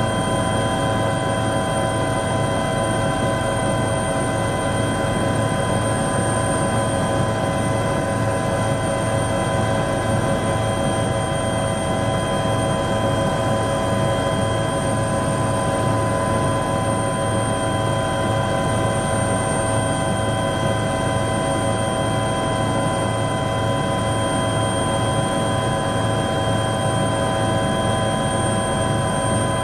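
Helicopter cabin noise in flight, heard from inside the cabin: a steady dense rumble of engine and rotor with several high whining tones held unchanged.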